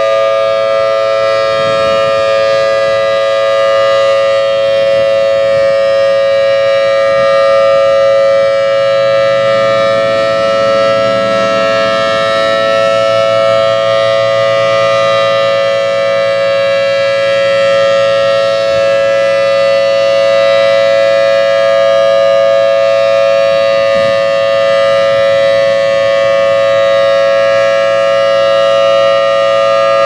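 Federal Signal Thunderbolt 1000T civil defense siren sounding a steady, loud wail. Its rotator is broken, so the horn stays pointed one way and the sound holds even instead of sweeping louder and softer.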